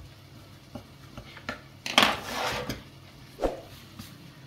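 Kitchen knife on a wooden cutting board: a few light chopping taps, then a louder scraping clatter about two seconds in and a single knock a second and a half later.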